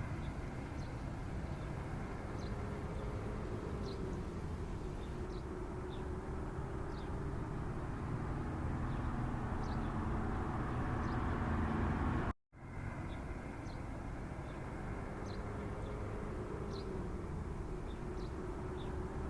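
Steady background ambience: a low rumble and hiss with faint short high chirps every second or so. It drops out briefly about twelve seconds in, then resumes.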